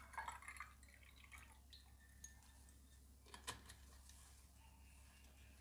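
Liquid poured from a plastic bottle into a glass with ice, trickling faintly for about the first second, then near silence with a single small click about three and a half seconds in.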